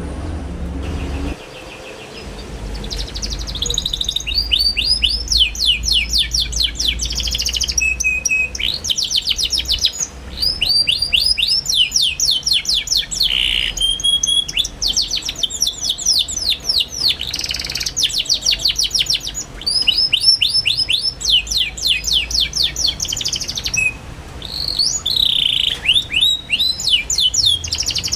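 Young canary singing a busy, chattering song: fast rolling trills of rapid repeated chirps, in phrases of a few seconds separated by brief pauses.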